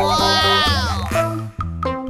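Bouncy children's background music, with a sound effect laid over it: a wavering, bleat-like tone that slides down in pitch and stops a little over a second in.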